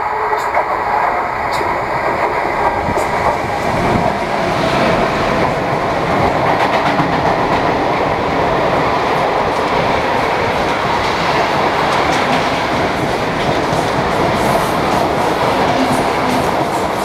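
A freight train of swap-body wagons behind a class 253 electric locomotive passes at full speed close by. The wheels make a steady, loud rumble on the rails with a clickety-clack.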